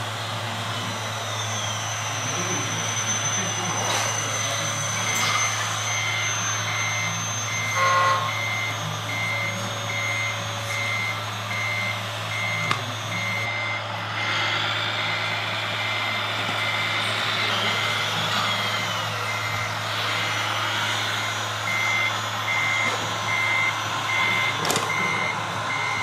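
Reversing beeper of an RC model hooklift truck's sound system, beeping about twice a second from about five seconds in, over a steady low hum. Whines rise and fall in pitch now and then in between.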